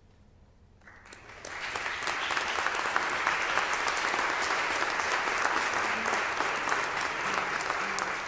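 Audience applauding at the end of a song: after a brief hush the clapping starts about a second in, swells quickly, and holds steady.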